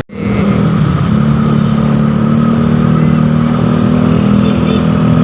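A sharp cut-out at the very start, then a motor-vehicle engine running at steady revs with an even low drone.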